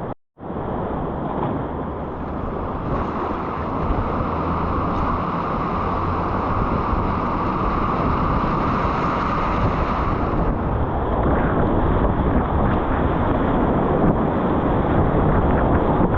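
Steady rush and roar of whitewater on a river running at medium-high level, with a short silent gap just after the start.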